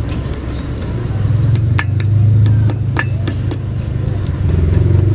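Pliers clicking and clinking on a steel cotter pin and castle hub nut as the pin is fitted and bent to lock the wheel bearing nut. Under it runs a steady low vehicle rumble that swells about a second and a half in.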